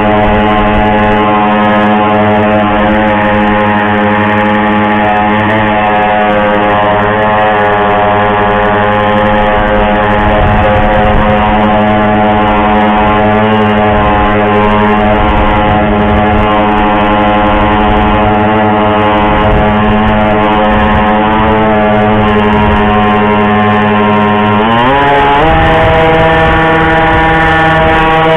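Small boat engine running steadily, then revving up about 25 seconds in and holding at the higher pitch.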